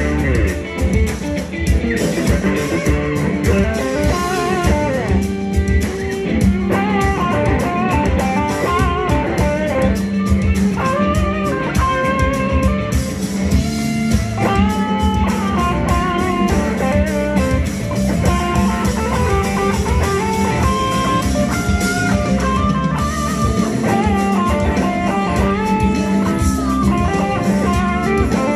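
Electric guitar fitted with McLguitars v2 clone pickups, played in a blues style with lead lines and string bends over drums, showing off the pickups' tone.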